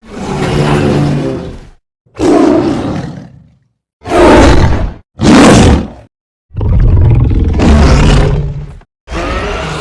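King Kong roar sound effects: a run of about six separate roars and growls, each one to two seconds long, with short silent gaps between them.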